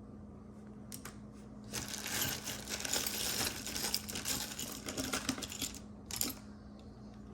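Small metal costume-jewelry pieces clinking and rattling against each other as they are handled and sorted. There is a dense run of little clicks for about four seconds, then one short burst of clinks near the end.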